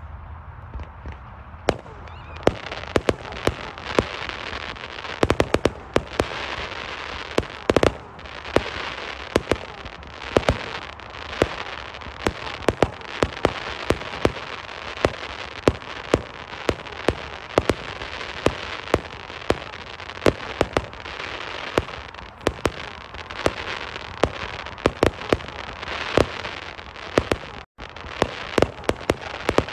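1.3G display fireworks going off: a continuous crackle with sharp bangs several times a second, starting about two seconds in.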